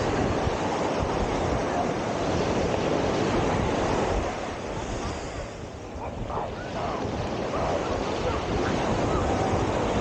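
Small surf washing in on a sandy beach, with wind rumbling on the microphone. The sound eases briefly about six seconds in.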